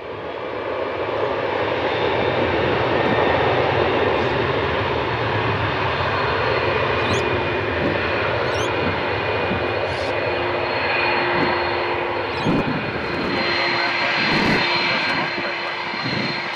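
Airbus A330-200 jet airliner's twin GE CF6 turbofan engines running at high power, a steady loud roar with a high whine on top.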